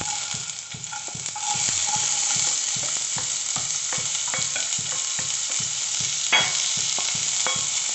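Chopped onions sizzling as they fry in hot oil in a non-stick kadai, the sizzle growing louder about a second and a half in as more onion goes into the pan. Scattered clicks of utensils against the pan, with a sharper knock a little past six seconds.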